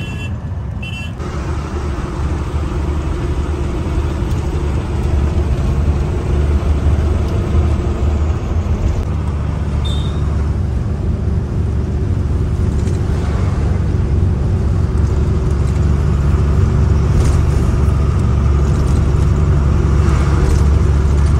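Diesel truck's engine and road noise heard from inside the cab while driving: a steady low rumble.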